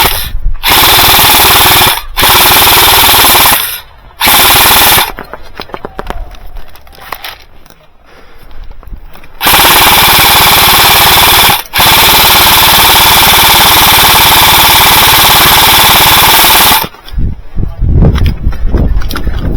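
Golden Eagle MCR airsoft light machine gun firing sustained full-auto bursts close to the microphone: three short bursts of one to two seconds, a pause of about four seconds, then two long bursts, the last about five seconds long.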